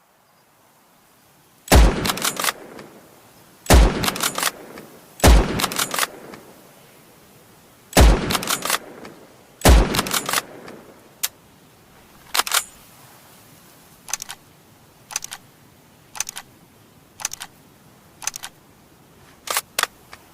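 Springfield M1903 bolt-action rifle fired five times, a shot about every two seconds, each shot followed by a quick run of metallic clicks as the bolt is worked. After the fifth shot come about eight lighter metallic clicks, single or in pairs, roughly a second apart.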